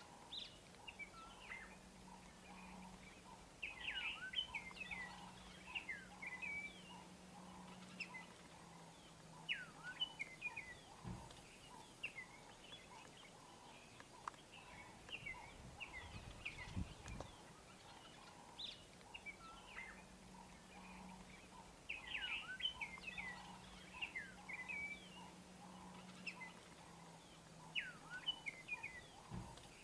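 Faint birdsong: many short chirps and falling whistled calls over a low steady hum. The same stretch of calls repeats about every 18 seconds, as in a looped ambience track.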